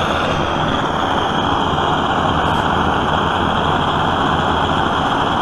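Vintage brass gasoline blowtorch burning with a steady, even rushing noise from its pressurized flame, running smoothly once warmed up.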